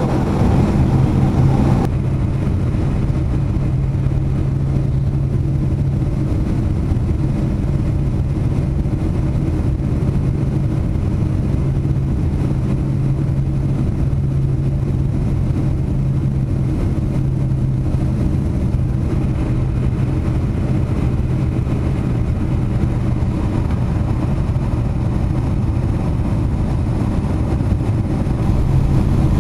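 Steady drone of a Boeing 747's engines and rushing air heard inside the passenger cabin during the descent, with a constant low hum under it. It drops slightly in loudness about two seconds in.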